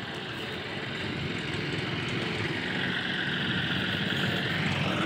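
Dust-storm wind gusting hard and buffeting the phone's microphone in a rough, steady roar that grows louder.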